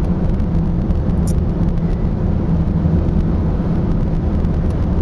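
Car driving along, heard from inside the cabin: steady low engine and tyre noise.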